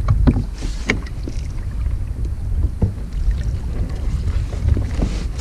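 Wind buffeting the microphone out on open water, a steady low rumble, with a few short knocks and brief splashes as a kayak moves along.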